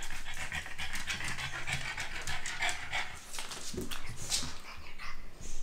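A dog panting rapidly, out of breath after a bout of play.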